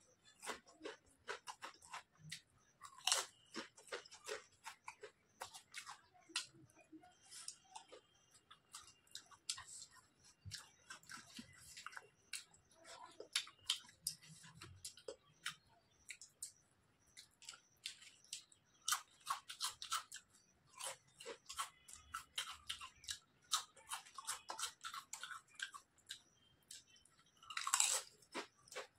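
Close-up crunching and chewing of crisp chips: many short, sharp crackles in irregular runs, with a louder smack near the end.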